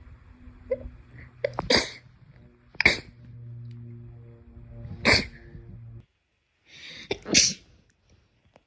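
Four sneezes, each a sharp, loud burst. They come about a second apart, then after a longer gap. The last is preceded by a quick breath in.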